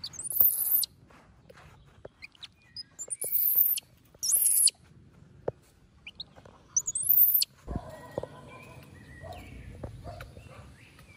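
A baby monkey shrieking four times, in short, shrill, very high-pitched screeches spread over the first seven seconds. After that come a thud and a low scraping as a hand hoe is worked into loose soil.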